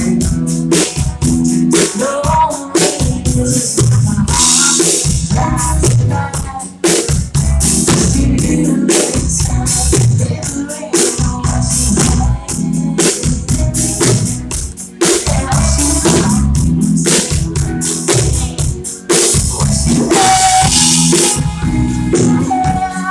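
Live rock band playing: a woman singing over electric guitar, bass guitar and a drum kit keeping a steady beat.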